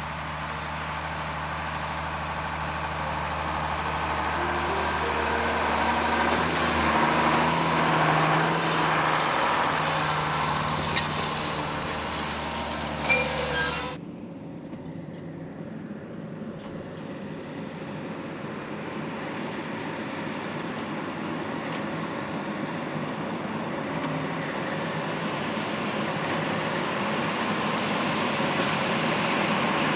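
Farm tractor engine running steadily and growing louder. About halfway through, the sound cuts abruptly to a duller recording of machinery running, which builds in level toward the end.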